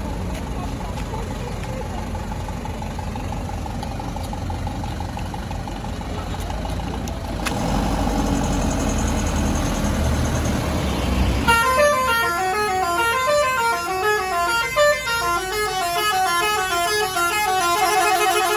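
A bus engine running with a low rumble that grows louder partway through, then, about two-thirds of the way in, a basuri telolet horn starts playing a fast melody of stepped notes running up and down over and over.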